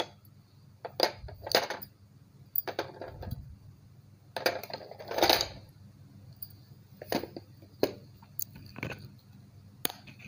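Hard pieces being handled in a steel bowl, clinking and rattling against the metal in a string of separate short clatters.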